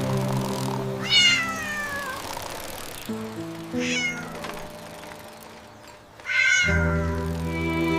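A cat meowing three times: a longer falling meow about a second in, then two shorter ones, over soft sustained background music that fades and swells again near the end.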